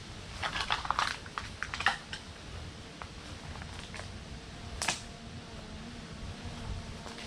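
A quick run of sharp clicks and knocks of hard objects, then a single louder knock a few seconds later, over a low steady background.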